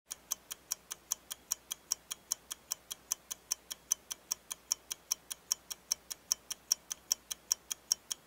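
Clock ticking evenly and quickly, about five ticks a second.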